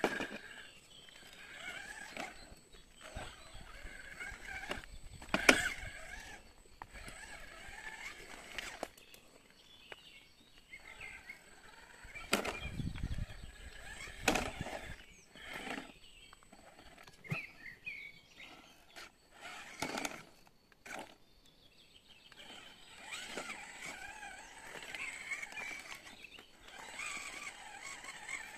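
RC rock crawler's small electric motor and gears whining on and off as it crawls over rocks, with scattered knocks of tyres and chassis on stone.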